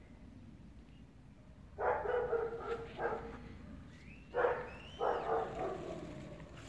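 A dog barking four times, in two pairs, with a bird's short gliding chirps between the pairs.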